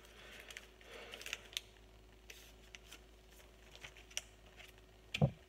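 Faint crinkling and small clicks of a freshly cut foil booster-pack wrapper and trading cards being handled, with a brief low thud near the end.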